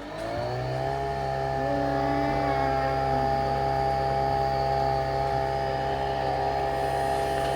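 Nespresso Vertuo Next coffee machine brewing: its motor spins the capsule up with a rising whine over about the first second, then runs at a steady high-speed whir.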